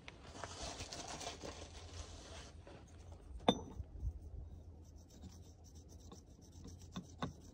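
Faint scraping and rubbing of a metal pipe being set and shifted across the rim of a galvanized iron pipe reducer, with one sharp metallic tap about three and a half seconds in and two light clicks near the end.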